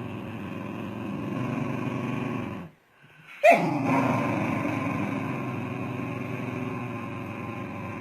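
Dog making a long, steady low growling rumble, stopping briefly about three seconds in, then starting again with a sharp higher cry that drops into the same continuous rumble.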